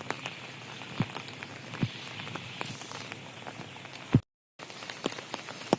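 Rain falling steadily: a constant patter of raindrops with individual drops ticking through it, and a few louder drips about one and two seconds in. The sound cuts out completely for a moment about four seconds in.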